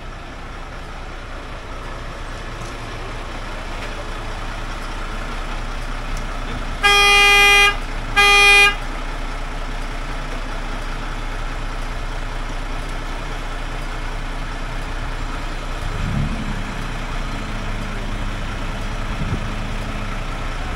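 A vehicle horn sounds two short, steady-pitched blasts close together, the first a little longer, over the steady running of an idling truck engine.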